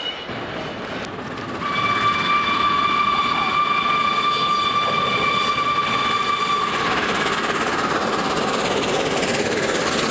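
Peppercorn A1 steam locomotive No. 60163 Tornado sounding one long, steady whistle blast of about five seconds as it approaches. After the whistle stops, the loud, steady noise of the locomotive and its coaches drawing near carries on.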